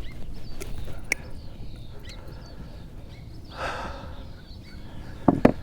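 Handling noise in a kayak under a low rumble, with a few light clicks, one breathy exhale a little over halfway in, and two sharp knocks near the end.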